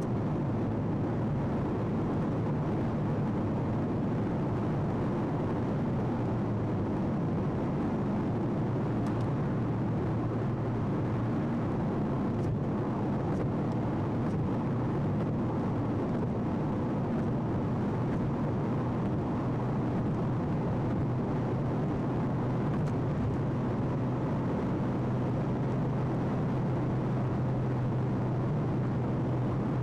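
Steady engine and tyre noise heard from inside a vehicle cruising at motorway speed: an even low hum that does not change.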